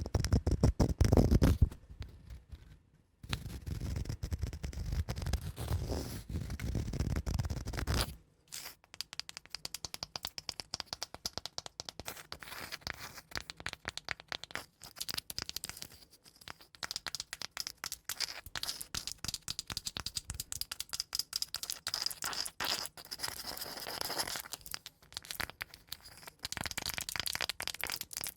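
Scratching and tapping on a cork mat and wooden blocks: a deeper, heavier rubbing for the first several seconds with a brief pause, then from about eight seconds in a fast, dense run of small scratching strokes.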